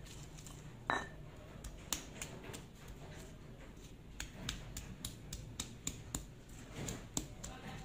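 Stone pestle pounding and grinding chillies and garlic in a volcanic stone mortar: irregular light knocks and clicks, with one louder, briefly ringing knock about a second in.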